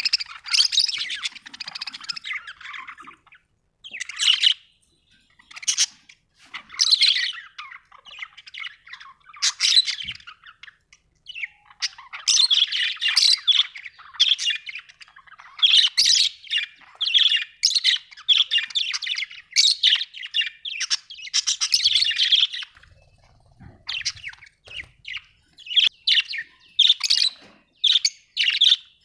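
Budgerigar chirping in quick bursts of high chirps and warbles, with short pauses between bursts.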